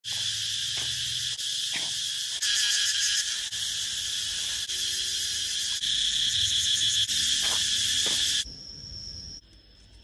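Cicadas buzzing in a loud, steady, high-pitched drone that drops away sharply about eight and a half seconds in, leaving a fainter, steady, high insect tone.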